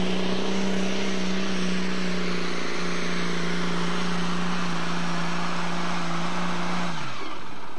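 Pulling tractor's diesel engine running flat out under full load as it drags the weight sled, a loud steady engine note over heavy exhaust noise. About seven seconds in the note falls sharply as the engine winds down at the end of the pull.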